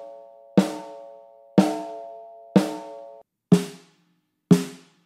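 Unprocessed snare drum struck in the centre about once a second, five hits. The first three are on the bare head and ring on with a long overtone ring; the last two, with a Big Fat Snare Drum dampener laid on the head, are short and dry with little ring.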